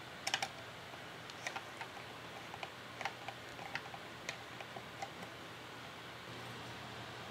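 Hand screwdriver turning small brass slotted screws into a brass box hinge: faint, irregular light clicks and ticks of the blade working in the screw slots, which stop about five seconds in.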